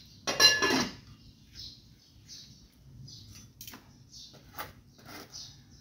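A metal pot lid clatters with a brief ringing about half a second in, followed later by a few light metallic clicks as the fire in the stove is poked. A small bird chirps over and over throughout.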